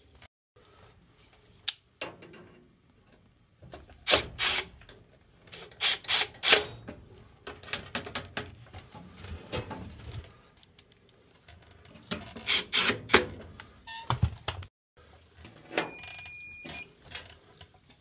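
Sharp clicks, knocks and small metallic rattles of a screwdriver against the furnace's sheet-metal parts while a high limit switch is fitted and screwed in place. The sounds come in irregular clusters with short pauses between them. There is a brief steady high beep near the end.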